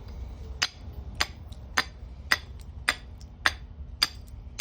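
Hand-forged steel fire striker struck against flint, a sharp click with each blow, about eight strikes at a steady pace of nearly two a second. The strikes are failing to throw sparks.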